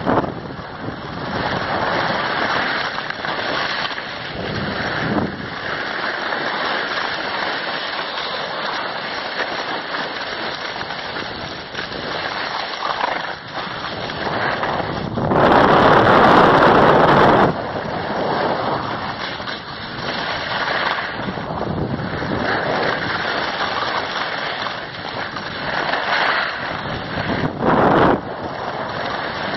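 Wind rushing over the microphone of a camera moving down a ski slope, mixed with the hiss of skis sliding on packed snow. The rush swells for about two seconds around the middle and again briefly near the end.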